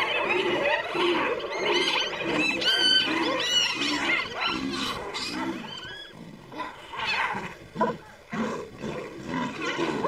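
A lion and spotted hyenas calling in a clash: low growls and roars mixed with higher, sweeping whoops and yelps, briefly quieter past the middle.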